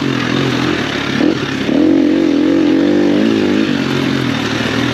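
Enduro motorcycle engine running under load, its pitch rising and falling as the throttle is worked.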